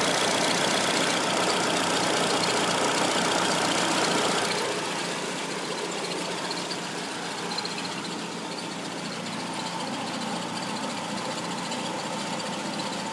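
Peugeot 206 engine running at idle. The sound drops noticeably in loudness about four and a half seconds in and then settles.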